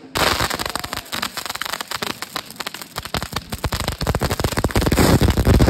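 Mass of fireworks going off together: a dense, continuous crackle of countless small pops that starts suddenly and grows louder and heavier about halfway through.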